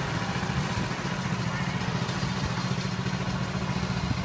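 A small engine idling steadily with an even, rapid low putter.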